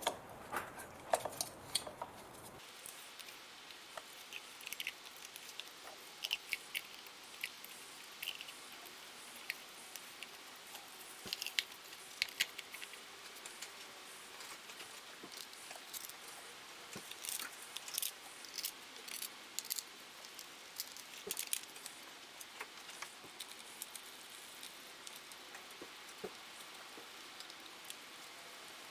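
Scattered light clicks, taps and rattles of ignition coil packs and small parts being handled and fitted back onto the spark plugs by hand, in irregular clusters.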